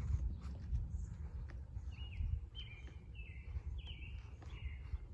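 Eastern grey squirrel barking: a run of about five short calls, each dropping in pitch, about half a second apart, starting some two seconds in, over a steady low rumble.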